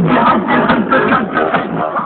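Electronic dance music with a fast, repeating beat, played loud through a car sound system fitted with a Mac Audio STX subwoofer.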